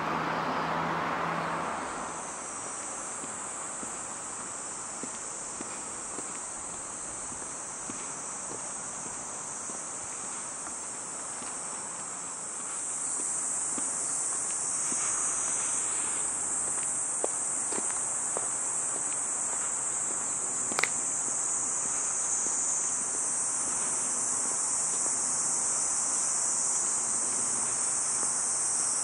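A steady, high-pitched chorus of insects, growing louder about halfway through. A broader rushing noise fades away in the first couple of seconds, and there are a few faint ticks and one sharp click about two-thirds of the way in.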